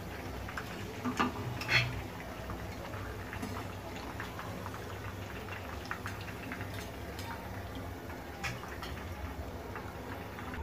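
Chicken pieces deep-frying in hot oil: a steady bubbling crackle with scattered small pops, and a few louder clicks between about one and two seconds in and again near the end.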